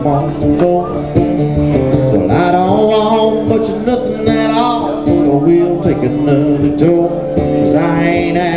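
A man singing a country song while strumming an acoustic guitar, with long wavering held notes.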